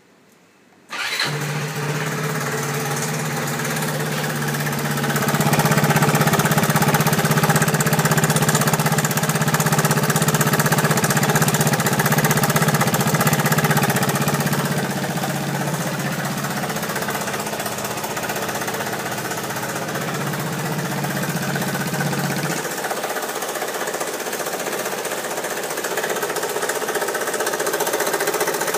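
Kymco Racing 150 EFi scooter's single-cylinder engine starting about a second in and then running steadily, a little louder for several seconds before settling. The owner takes its abnormal noise for a crankshaft fault.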